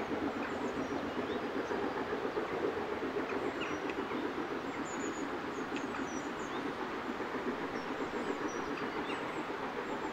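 Royal Scot No. 46100, a three-cylinder steam locomotive, working steadily uphill with its train: a continuous dense exhaust and running noise, with birds chirping over it.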